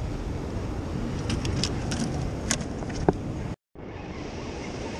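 Steady rush of ocean surf and wind on the microphone, with a few light, sharp clicks about one to three seconds in. The sound drops out completely for a moment about three and a half seconds in, then the surf noise carries on.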